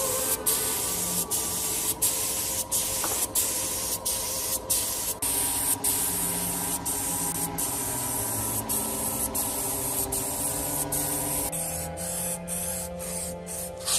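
Compressed-air paint spray gun hissing as it sprays, the hiss broken by short dips about every half second. Near the end it gives way to the hiss of an aerosol spray-paint can.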